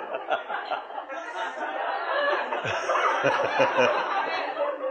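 A roomful of people laughing and chuckling together, mixed with a little talk.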